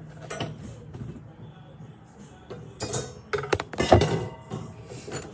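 Metal parts of a wire can rack clinking and knocking together as they are handled and fitted during assembly: a few sharp strikes, the loudest a little under four seconds in.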